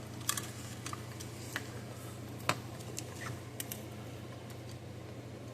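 Scattered small clicks and taps of hands working wire connectors and plastic parts while an electronic scale indicator is put back together, over a low steady hum. The sharpest click comes about halfway through.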